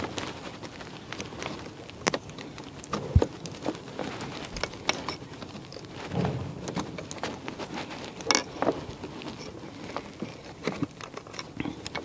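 Irregular small clicks, taps and rattles of metal and plastic parts being handled as a minivan's sliding-door latch and lock actuator assembly is worked back into its plastic door panel, with a sharper knock about three seconds in and another just past eight seconds.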